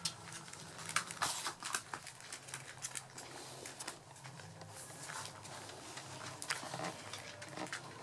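Puppies' paws and claws pattering and scrabbling on a hard tiled floor: a scatter of irregular light clicks and scuffs as they scramble about and climb.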